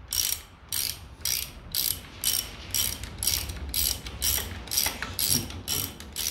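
Hand ratchet wrench being worked back and forth, its pawl rasping in short, even strokes about twice a second.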